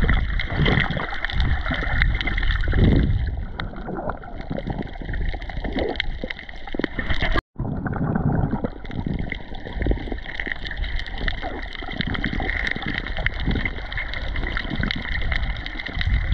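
Water sloshing and gurgling with many small irregular splashes. The sound cuts out for a split second about halfway through.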